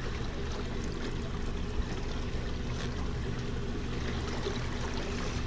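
Small boat's outboard motor idling steadily, with water splashing and lapping around the hull.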